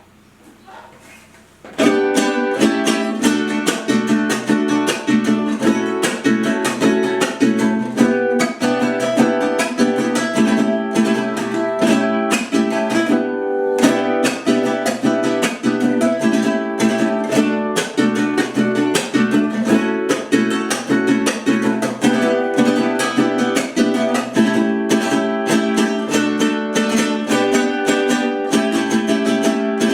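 Mariachi vihuela with a bocote body and German spruce top being strummed in rapid, rhythmic chords. The strumming starts about two seconds in.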